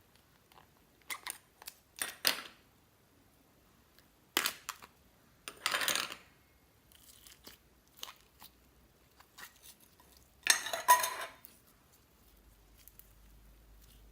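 Slime being squeezed and mixed by hand, with short crackling, crunchy bursts, five louder ones spread between quieter clicks.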